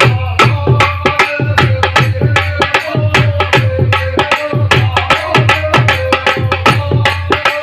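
Indian folk devotional music: a hand drum playing a fast, steady rhythm of about four strokes a second over a sustained melody.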